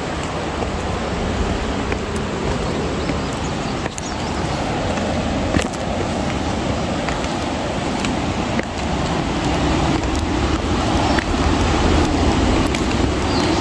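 Steady rushing wind noise buffeting the microphone, with a few sharp clicks of footsteps on stone.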